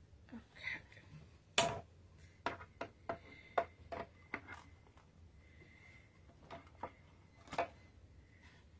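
Light clicks and taps of a thin metal cutting die on cardstock and a plastic cutting plate, handled and lined up by hand on a die-cutting machine's platform. About a dozen short, sharp ticks come irregularly, the loudest about one and a half seconds in and most of them bunched in the first half.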